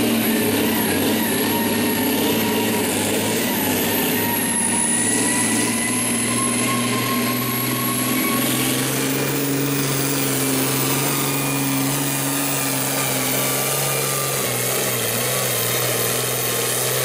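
John Deere diesel pulling tractor running hard at full power, dragging a weight-transfer sled down the track. A thin high whistle rides over the engine and climbs about halfway through.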